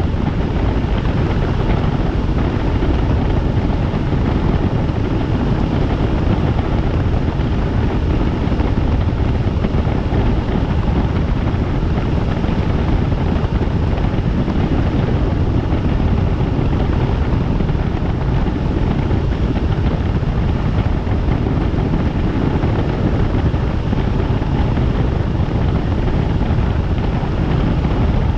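Helicopter in flight: a loud, steady noise of rotor and turbine, unchanging throughout.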